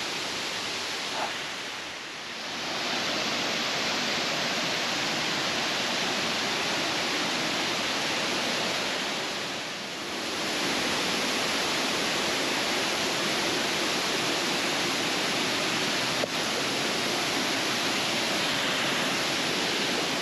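Waterfall seen from close by: a steady, quite noisy rush of falling water, easing briefly twice.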